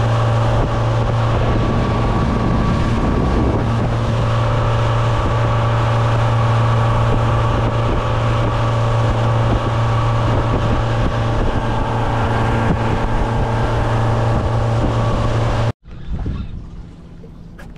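Boat motor running steadily at cruising speed, a loud even low hum, with wind buffeting the microphone and water rushing past the hull. It cuts off abruptly near the end, leaving a much quieter low hum.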